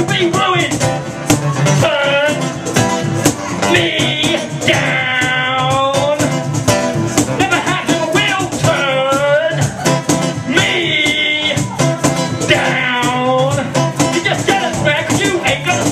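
Live music: a man singing held, wavering lines into a microphone over electric guitar, with a steady clicking beat underneath.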